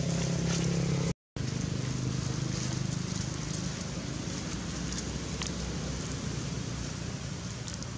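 A steady low hum over a background hiss. It cuts out for a split second about a second in, and a few faint ticks come later.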